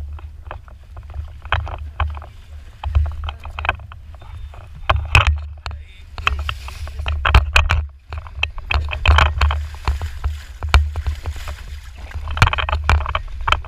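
Rigid inflatable boat under way: a steady low rumble, with water repeatedly slapping and splashing against the hull in short sharp bursts.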